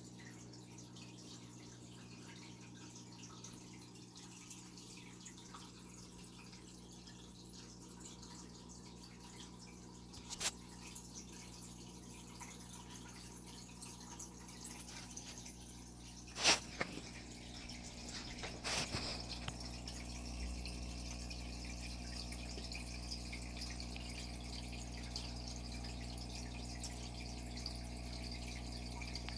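Aquarium water trickling and dripping over a steady hum, with a few sharp taps, the loudest about halfway through.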